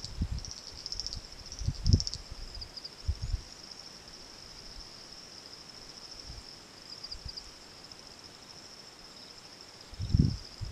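Insects chirping steadily in a high, narrow band, the trill pulsing in the first two seconds. A few short, low, muffled thumps at the start, about two seconds in and near the end are the loudest sounds.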